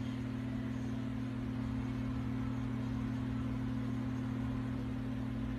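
A steady low hum, a few unchanging deep tones over faint noise, from a running machine.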